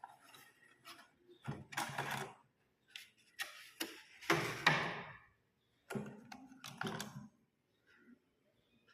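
Hair trimmer and its plastic packaging being handled: clicks and rustles in four short bursts over several seconds.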